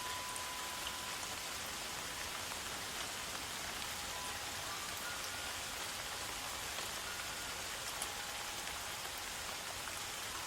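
Steady rain falling, an even hiss with scattered faint drop ticks. A few faint, long, high held tones come and go over it.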